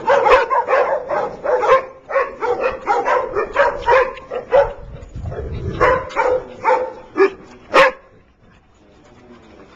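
Dog giving a quick run of short barks and yips, about three a second, which thin out and stop about eight seconds in.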